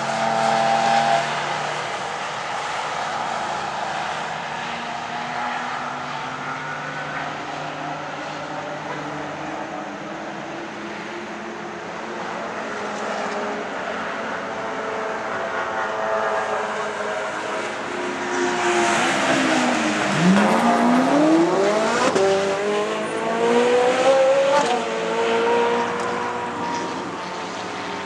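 Race cars' engines running around the circuit, with more than one engine note heard at once. Past the middle, one car gets louder: its engine pitch drops sharply, then climbs again in steps as it revs up through the gears.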